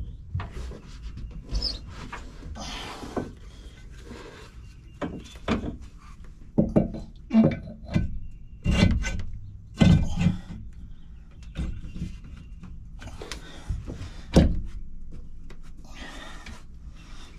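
Irregular knocks, thunks and scraping as a marine engine's exhaust elbow is lowered onto the manifold over a new gasket and shifted into place.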